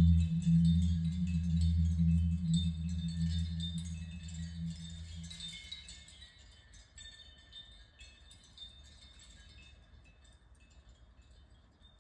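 The ending of a recorded song: a low held note that stops about five seconds in, and wind chimes tinkling on after it while everything fades away.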